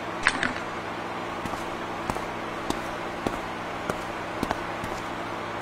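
Footsteps on a concrete floor, a little under two steps a second, over a steady low workshop hum. A short rustle, like cloth being handled, comes just at the start.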